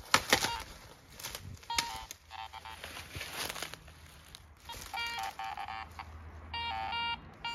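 Handheld metal detector sounding its target signal: four short electronic tones, each stepping between two pitches, as it passes over buried metal. A few sharp snaps of dry twigs near the start are the loudest sounds.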